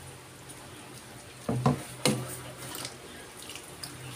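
A bowl scooping vegetable broth out of a pan: liquid sloshing and dripping, with a few light knocks of the bowl against the pan between about one and a half and two seconds in.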